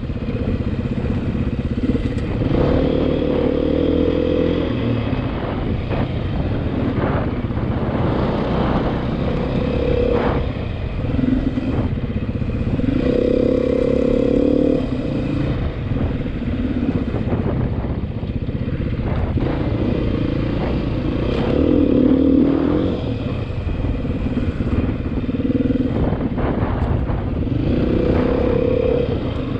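Beta 500 RR-S single-cylinder four-stroke dual-sport motorcycle running under way, its revs rising and falling again and again as the throttle is rolled on and eased off. Scattered sharp clicks and rattles are heard over the engine.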